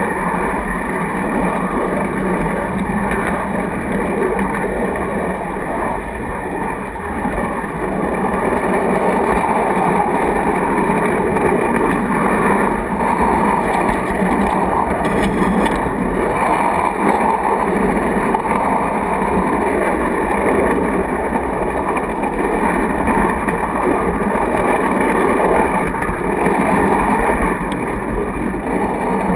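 Steady rolling rumble and rattle of a large-scale model train car's wheels running over the track, heard from inside the car's wooden body.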